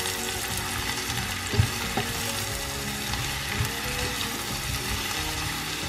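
Sliced button mushrooms, onion and garlic sizzling in butter in a frying pan, stirred with a spatula that knocks against the pan a few times.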